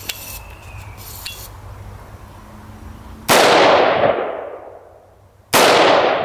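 Two shots from a scoped AR-15 rifle, about two and a half seconds apart, each with a long echoing tail that fades over a second or so.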